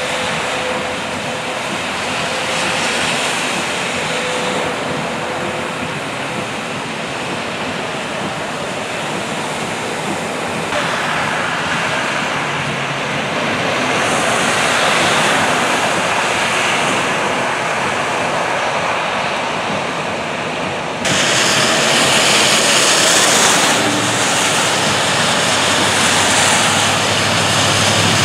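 Cars' tyres hissing and spraying through standing water on a rain-flooded road, with rain falling; a steady wash of noise that swells as vehicles pass and changes abruptly three times.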